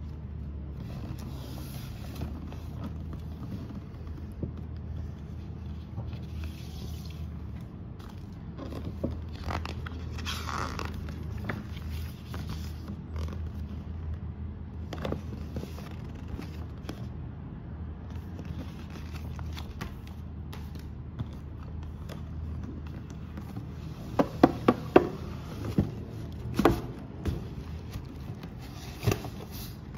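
Paper and cardboard packaging being handled and unwrapped: rustling and scraping, then a run of sharp knocks and taps from the shoebox in the last part, with a steady low hum underneath.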